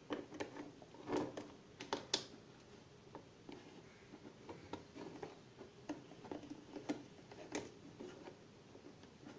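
Irregular light clicks and knocks of hard plastic parts as a flush handle and its lever arm are fitted and locked into an empty plastic toilet cistern.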